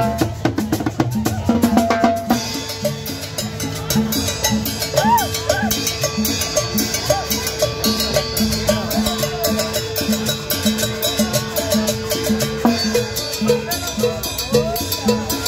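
Live cumbia street band playing, with drums and timbales keeping a steady beat about twice a second. A long held note runs under the percussion for most of the stretch.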